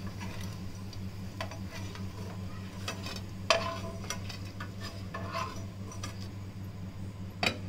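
A steel spoon clinking and scraping against a nonstick frying pan and a steel plate as crisp fried suran slices are lifted out, a few scattered sharp clinks, the loudest about three and a half seconds in, over a steady low hum.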